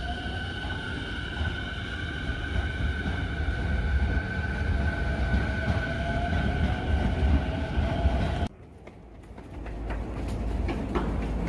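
An electric commuter train running past on the Saikyo Line: a low rumble of wheels on rail under a steady high whine, with a motor tone that rises slightly in pitch. About eight and a half seconds in the sound cuts off sharply, and a second later rumble and sharp clicks of train wheels come back.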